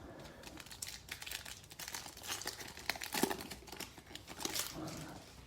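Foil trading-card pack wrapper crinkling as it is torn open and handled, in irregular crackles that peak about three seconds in.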